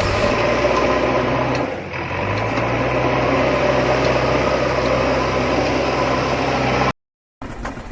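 Diesel engine of an excavator or tractor running steadily, dipping briefly about two seconds in. It cuts off abruptly near the end and is followed by a quick patter of sharp ticks.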